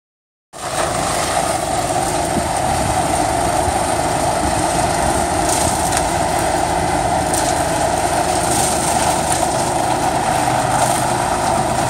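Morbark 23 WCL whole-tree chipper running steadily under load while chipping and blowing wood chips onto a pile. It comes in about half a second in.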